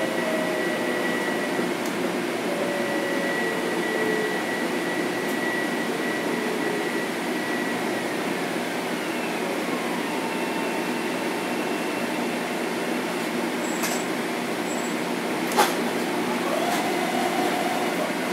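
Interior running noise of a Bombardier M7 electric multiple unit: a steady hum and rush with faint whining tones from its Mitsubishi IGBT inverters and AC traction motors that slide and shift in pitch. One sharp knock comes about three seconds before the end.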